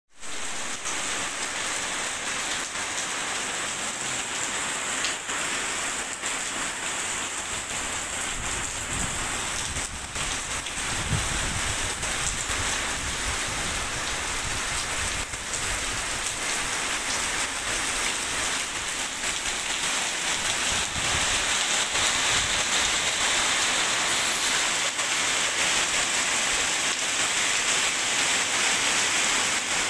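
Heavy rain falling steadily on pavement and walls, a dense even hiss that grows a little louder about two-thirds of the way through.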